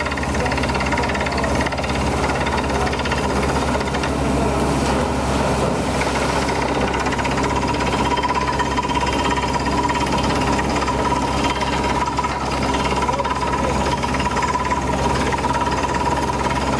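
Beretta T44 borehole drilling rig running while drilling, a loud, steady mechanical din with a fast, even rattle over the engine's hum. A steady high whine comes up more strongly about halfway through.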